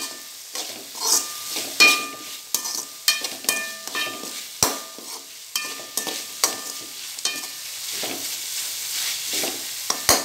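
Metal spatula scraping and clinking against an aluminium kadai as vegetables are stirred while frying in oil, over a steady sizzle. The pan rings briefly after each stroke.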